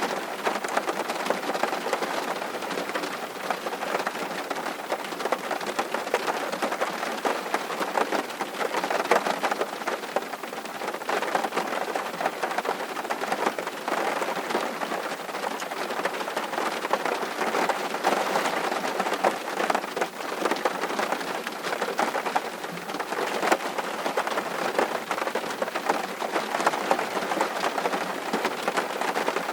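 Steady rain: a dense, even patter of many drops, rising and falling a little in strength.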